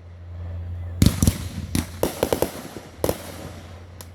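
Fireworks going off: a string of sharp bangs, several in quick succession between about one and three seconds in, and a fainter one near the end, over a steady low rumble.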